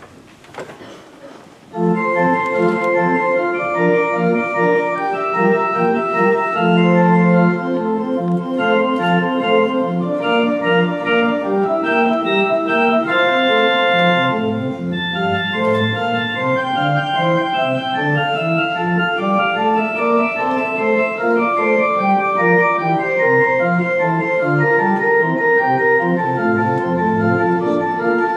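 Organ playing a piece of several voices, starting about two seconds in: held chords over a bass line that climbs and falls.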